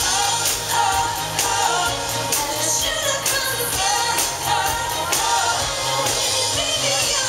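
A woman singing a pop song into a microphone, amplified over backing music with a steady beat.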